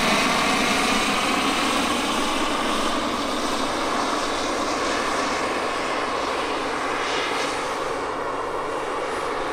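Turbine-powered RC scale helicopters (Bell JetRanger and Bell 429 models) flying: the steady whine of their model gas turbines mixed with rotor noise, easing slightly as they move off.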